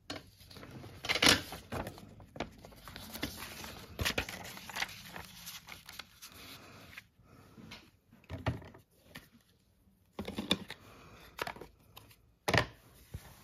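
Paper being handled on a craft table: irregular rustling with sharp taps and small clicks, quieter for a moment near the middle.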